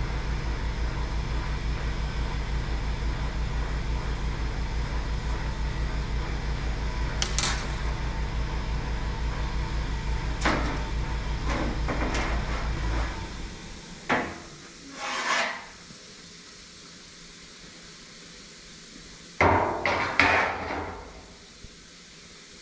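Scattered knocks and clanks of metal being handled and struck, with a cluster of clattering hits near the end. Under them runs a steady low pulsing machine hum that cuts off a little past halfway.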